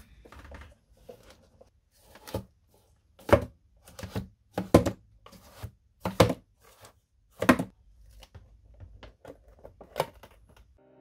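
Cardboard mechanical hand being worked: its cardboard fingers, pulled by strings from finger rings, bend and spring back with short dry knocks and rustles of cardboard, irregularly about once a second. A last knock near the end as the cardboard lid of the control box is shut.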